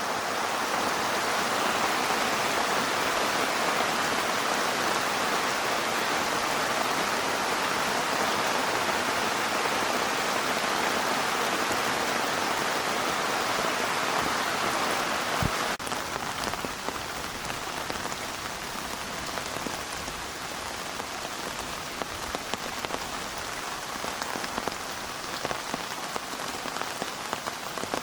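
Heavy rain falling steadily as a dense hiss. About halfway through it changes abruptly to a slightly quieter rain in which separate drops tick distinctly.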